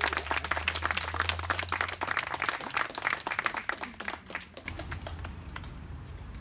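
Applause: quick, irregular handclaps from a small group that die away about four and a half seconds in.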